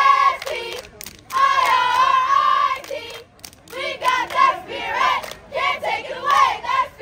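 Squad of cheerleaders chanting a cheer in unison in high voices and clapping along. About a second in they hold one long call, then break into short rhythmic calls.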